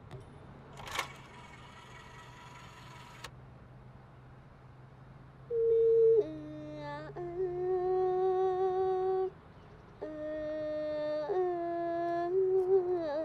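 A woman's voice singing slow, long-held notes without accompaniment, starting about five seconds in, with a brief wavering run near the end. Before it there is a soft whoosh over a low steady hum.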